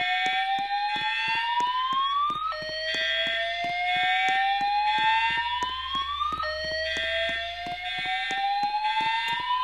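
A school fire alarm system's speakers sounding a rising whoop tone: each sweep climbs steadily in pitch for about four seconds, then drops back and starts again, with new sweeps beginning about two and a half and six and a half seconds in. A fast, even ticking runs beneath it.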